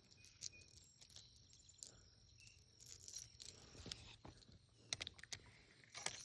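Near silence: faint outdoor ambience with scattered small clicks and rustles.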